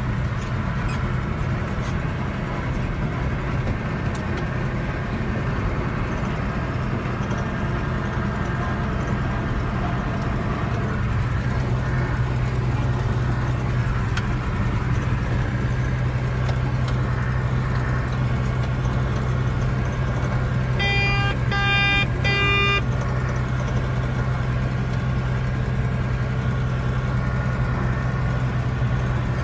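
Tractor engine running steadily, a low drone heard from inside the cab. About two-thirds of the way through, three short electronic beeps sound in quick succession.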